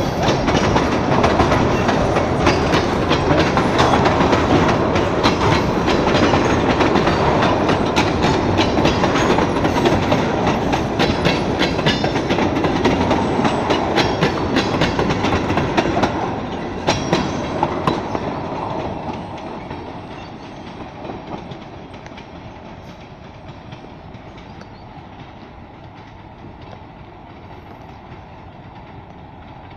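Freight train of tank cars and covered hoppers rolling past at close range: a steady rumble with the wheels clicking over the rail joints. About 17 seconds in the last cars go by and the sound drops away to a faint rumble as the train recedes.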